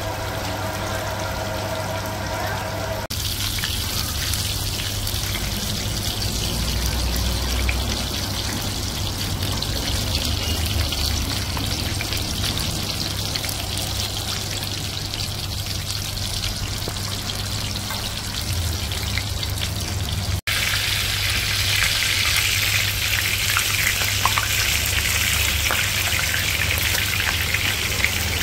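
Hot oil sizzling around a whole large fish frying on a big flat iron pan: a steady hiss over a low steady hum, growing louder about two-thirds of the way in. The first few seconds hold a different sound with steady tones before a cut to the sizzling.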